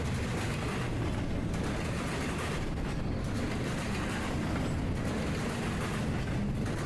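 Norfolk Southern intermodal freight train passing close by: a steady rumble with wheel-on-rail clatter that swells and dips about every second and a half.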